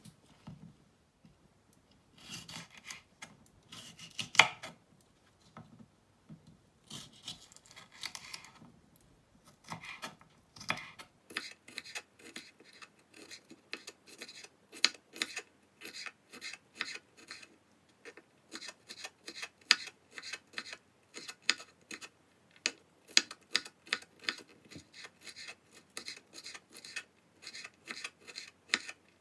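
Kitchen knife slicing hot red peppers on a bamboo cutting board, with scraping cuts at first. From about ten seconds in it becomes a quick run of chopping taps on the board, about four a second, as the peppers are finely chopped.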